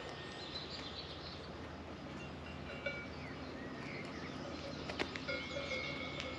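Birds chirping and whistling in short high calls over a faint outdoor background, with a held whistle near the end. A couple of light clicks are also heard.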